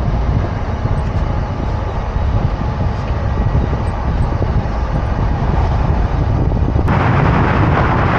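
Wind buffeting the microphone over the rumble of a moving pickup truck, heard from its open bed. About seven seconds in the rushing hiss grows louder and brighter.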